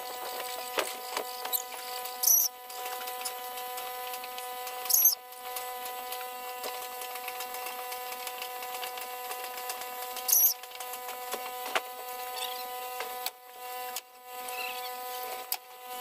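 Wire mesh being cut with hand snips: three sharp snaps, about 2, 5 and 10 seconds in, with fainter ticks between them. A steady electrical hum runs underneath.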